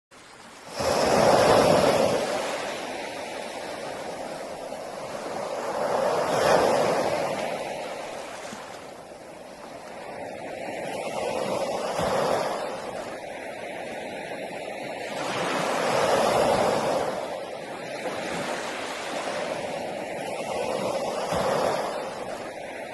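Sea waves breaking and washing ashore in a steady surf, coming in about half a second in and swelling up and ebbing roughly every five seconds.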